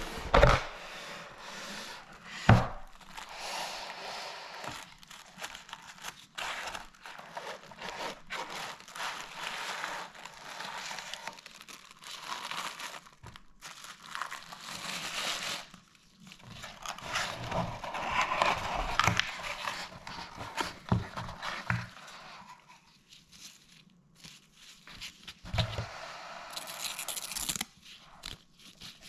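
Keyboard packaging crinkling, rustling and tearing as it is handled and opened, with a few sharp knocks.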